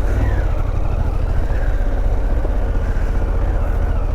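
Harley-Davidson Pan America's 1250 cc V-twin engine running steadily while the bike is ridden, under a heavy low rumble of wind.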